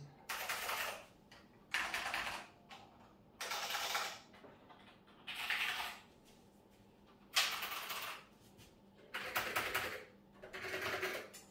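Zeos NMB keyboard with clicky black Space Invader switches typed on fast. The keys give seven short bursts of rapid, sharp, high-pitched clicking, each lasting under a second, with brief pauses between them.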